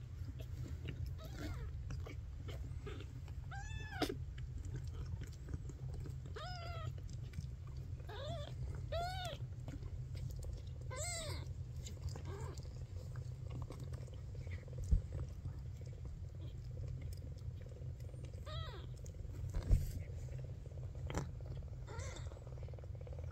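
Newborn Maine Coon kittens mewing: several short, thin cries that rise and fall in pitch, scattered through, over a steady low purr. There are two soft bumps, one about midway and one later.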